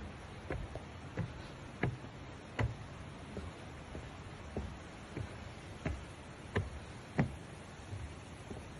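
Footsteps at a walking pace, about three steps every two seconds, some knocks louder than others, over a steady hiss.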